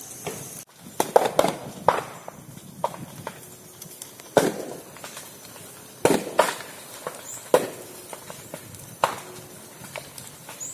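A burning clump of living bamboo, its stems bursting with loud, sharp bangs, about ten at irregular intervals, some in quick succession. The bangs come from heated air and steam splitting the sealed sections of the stems.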